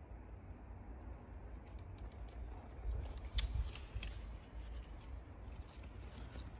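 Outdoor ambience: a low, fluctuating rumble of wind on the microphone, with a few faint clicks and rustles about halfway through.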